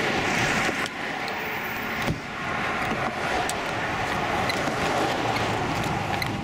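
Steady rushing wind noise with a low rumble underneath, from strong gusty wind near a tornado, and one sharp knock about two seconds in.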